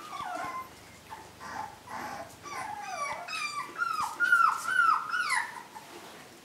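Puppies whimpering while they wrestle in play: a run of short, high whines that fall in pitch, coming thicker and louder from about halfway through.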